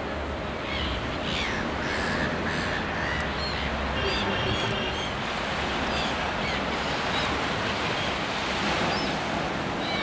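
Surf washing steadily onto the beach, with scattered short calls from a resting flock of terns and gulls.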